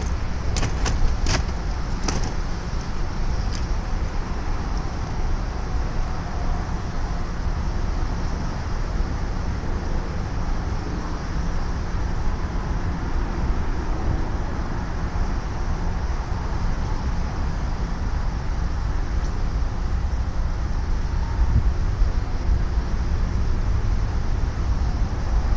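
Steady low rumbling outdoor background noise, with a few sharp clicks in the first few seconds.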